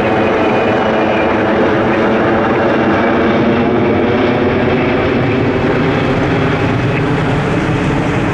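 Boeing KC-135R Stratotanker's four CFM56 (F108) turbofan engines running loud and steady, a rush of jet noise layered with several held whining tones.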